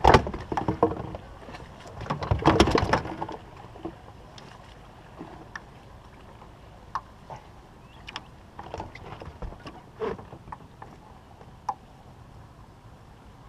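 Knocks and rattling of gear being handled on a boat deck during the first three seconds, then scattered light clicks and taps.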